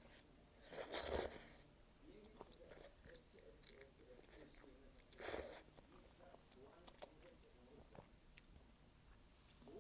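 A person eating malatang close to the microphone: quiet chewing and small mouth clicks, with two louder, brief mouth noises about a second in and just after five seconds.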